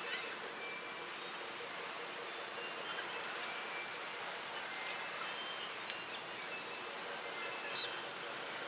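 Steady outdoor background hiss with scattered short, high bird chirps.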